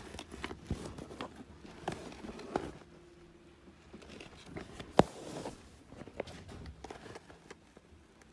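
Handling noise from a Louis Vuitton tote bag being moved and touched: soft rustles and scattered light knocks, quieter after about three seconds, with one sharp click about five seconds in.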